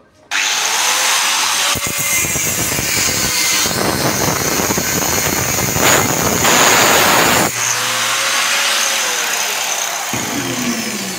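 Electric angle grinder with a cut-off disc starts abruptly and grinds through metal for about six seconds. It then runs free with a steady whine and begins winding down near the end.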